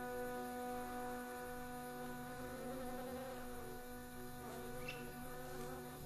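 A flying insect's wavering buzz, strongest in the middle, over a steady droning chord of background music.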